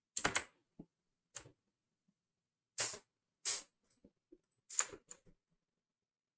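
Faint, irregular clicks of a computer mouse and keyboard, about a dozen short taps in loose groups, the loudest spaced roughly a second apart.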